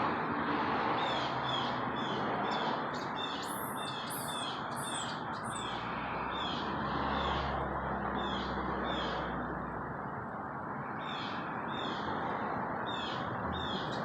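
Short chirping calls repeated about twice a second, with a few higher sweeping calls about four seconds in. The calls thin out in the middle and pick up again near the end, over a steady background of outdoor noise.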